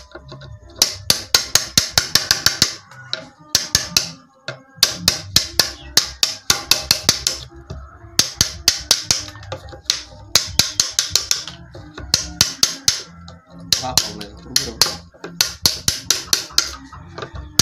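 A wood chisel driven into a wooden slab with rapid mallet taps, cutting notches along its edge. The sharp taps come in quick runs of several a second, each run lasting a second or two, with short pauses between.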